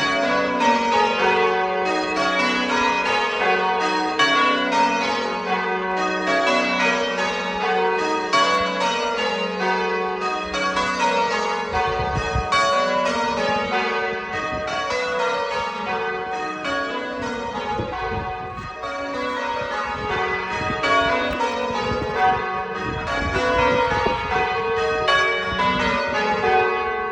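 Church bells pealing: several bells struck one after another in repeating runs that step down in pitch, each stroke ringing on into the next.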